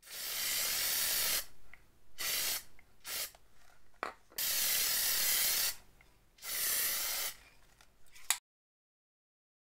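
Aerosol spray paint can spraying black paint in bursts of hiss, two of them over a second long and several shorter puffs between, with a sharp click near the end.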